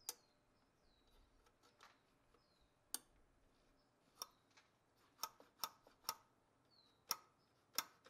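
Sharp metallic clicks and ticks from the throttle cable and throttle lever on a Toyota 22RE throttle body as the cable end is worked back onto the linkage. The clicks are sparse at first and come more often in the second half.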